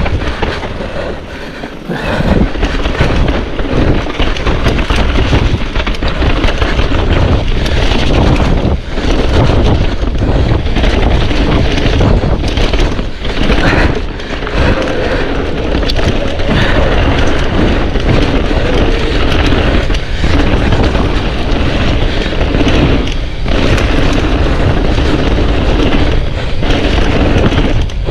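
Loud wind buffeting on the microphone of a camera riding along on a mountain bike, mixed with tyre rumble and frequent knocks and rattles from the bike over rough trail.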